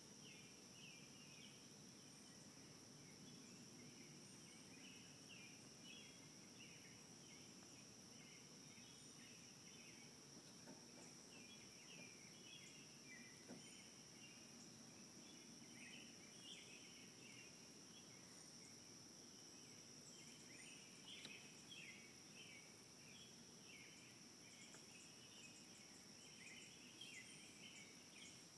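Faint outdoor ambience: a steady high-pitched insect drone, with scattered chirps of insects or birds underneath.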